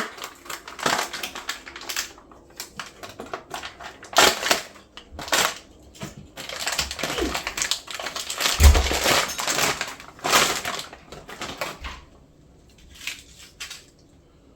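Plastic packaging crinkling and rustling as a filament spool is handled and unwrapped, in a dense run of irregular crackles that dies down about twelve seconds in, with a couple of brief rustles after.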